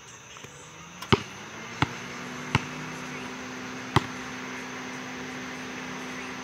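A basketball bouncing on a paved outdoor court, four separate bounces in the first four seconds. Under them a low steady hum slides up a little about a second in and then holds.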